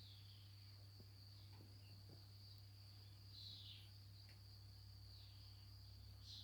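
Near silence: a faint, steady high-pitched insect chirring over a low hum.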